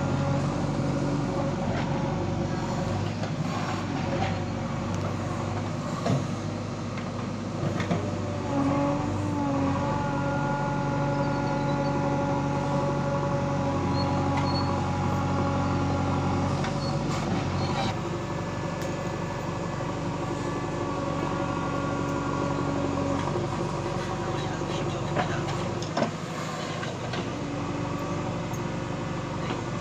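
JCB 3DX backhoe loader's diesel engine running under working load as the backhoe digs, its note shifting as the hydraulics pull on it. A few sharp knocks come from the digging, about six, eight and twenty-six seconds in.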